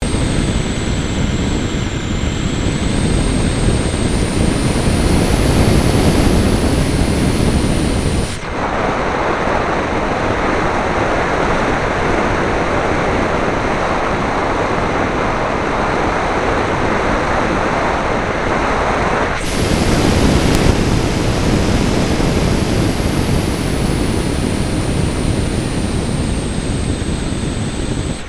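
Raptor RC model plane heard from a camera riding on board in flight: motor and propeller noise with wind rushing over the microphone, and a thin high whine that slowly rises and falls. About eight seconds in, the sound switches abruptly to a more even rush without the whine. The whine comes back about eleven seconds later.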